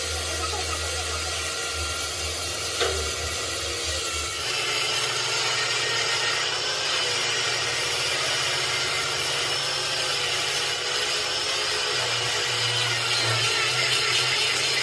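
Steady machine noise that gets louder and brighter about four and a half seconds in, with a single sharp click a little before three seconds.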